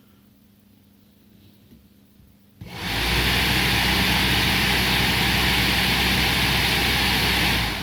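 Used electric radiator cooling fan from a 2006 Renault Scenic being test-run: it starts abruptly about two and a half seconds in and runs at full speed with a steady rush of air and a low motor hum. Near the end it is switched off and begins to spin down.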